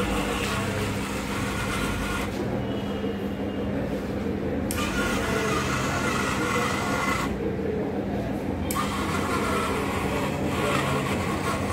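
Small 12 V DC gear motors of a model car running as it drives itself out of its parking spot, cutting out twice for a second or two and starting again, over a steady low hum.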